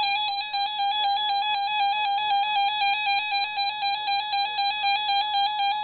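Weather alert radio's built-in electronic alarm going off for a severe thunderstorm warning: a loud, rapid warbling beep that flips between two close pitches about five times a second.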